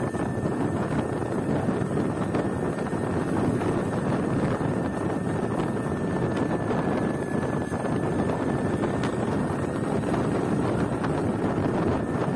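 Wind buffeting the microphone on an electric scooter at about 55 km/h, over a steady high whine from its electric drivetrain, a Flipsky 6384 motor with a chain and sprocket.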